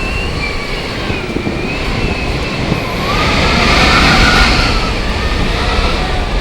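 Strong, gusting storm wind from Hurricane Matthew blowing on the microphone, with wavering whistling tones over the rumble. A gust swells louder about halfway through.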